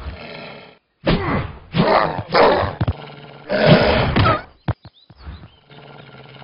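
Cartoon bear's wordless voice: a series of about five short grunts and strained cries, with a few sharp clicks just after the middle.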